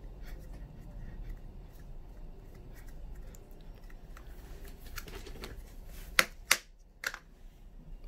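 Fingers pressing and rubbing soft dough into a plastic cookie stamp mould, with small handling clicks and rustles; a little after six seconds in come three sharp taps, the loudest sounds.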